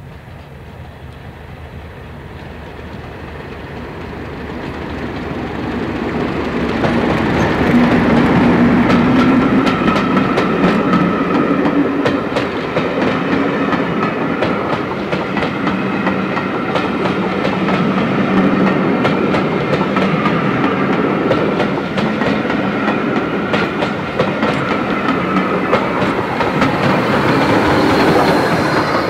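A heritage passenger train passing close by: a Class 31 diesel locomotive swells up over the first several seconds and goes by, then seven coaches clatter steadily over the rail joints, with the rebuilt Bulleid Battle of Britain steam locomotive at the rear passing near the end.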